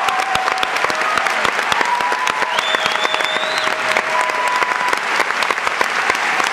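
Theatre audience applauding, a dense steady clapping, with a few faint held notes underneath.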